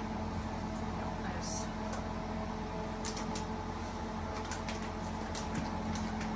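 Steady low machine hum with a few faint clicks and knocks scattered through it.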